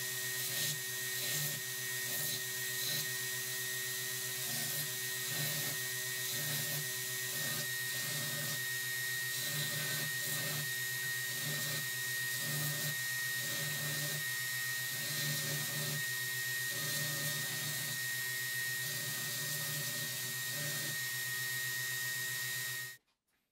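Belt grinder running with a steady motor whine while a steel hammer head is ground against its abrasive belt, the grinding hiss swelling and easing about every two-thirds of a second as the head is worked. The sound cuts off suddenly near the end.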